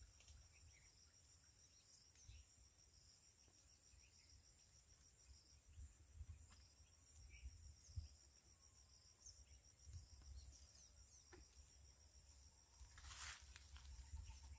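Near silence with a faint, steady, high-pitched insect chorus of crickets, joined by a few faint chirps. A brief rustle comes near the end.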